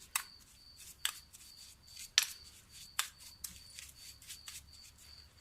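A metal spoon clicking against a bowl four or five times, about once a second, as a heaped spoonful of granulated sugar is added to grated turnip.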